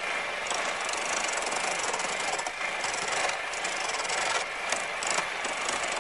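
A turning gouge roughing down a spindle of green wood on a foot-powered treadle lathe: a continuous scraping hiss of the cut, with a few brief breaks.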